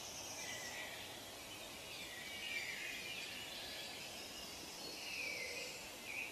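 Faint outdoor ambience: small birds chirping now and then over a steady background hiss.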